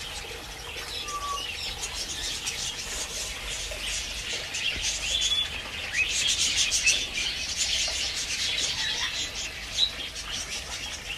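Birds chirping and chattering in quick, high calls with a few short whistles, busiest about halfway through.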